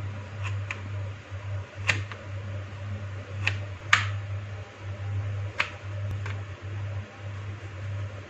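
Knife shaving a bar of chocolate on a plastic cutting board: irregular sharp clicks as the blade strikes the board, about eight in all, over a steady low hum.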